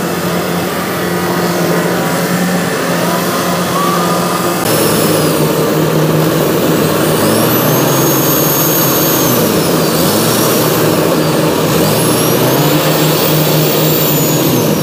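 Diesel engines of a Kubota DC70 rice combine harvester and a small farm tractor running hard in sticky paddy mud, the revs rising and falling again and again as the tractor struggles to pull through. The sound steps up louder about five seconds in.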